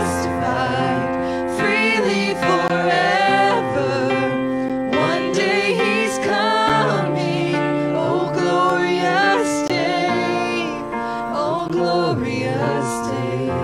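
A church worship team singing a gospel song, several voices with a woman leading, over held chords on an electric keyboard.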